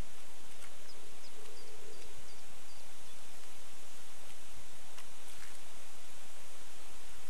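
Steady hiss of lawn sprinklers spraying water, with a small bird chirping a run of short high notes about a second in.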